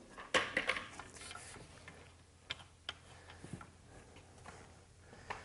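Light clicks and clatters of painting tools and a plastic bucket being handled: a cluster of quick knocks about half a second in, then scattered single ticks.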